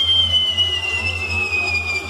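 A firework giving off one long, shrill whistle that slowly falls in pitch, over a steady low hum.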